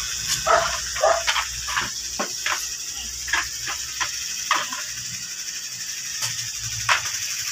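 Irregular light clicks and knocks of wooden bolo scabbards and steel blades being handled and sorted, about one every second, over a steady high hiss.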